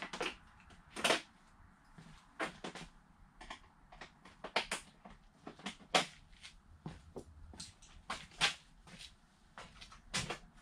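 Irregular clanks and knocks of tools and parts being handled as a sport quad is stripped down, about a dozen sharp hits spread unevenly, some with a short metallic ring.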